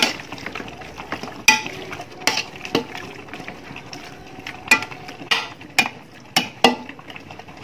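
Metal spoon stirring a thick, wet chicken-and-masala mix in a large metal pot, the spoon striking the pot with sharp clanks every second or so.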